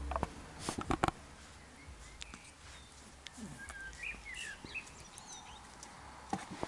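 Two Labrador retriever puppies play-fighting: scuffling, with a few sharp knocks and clicks in the first second, then quieter scuffles. Faint high chirps come in around the middle.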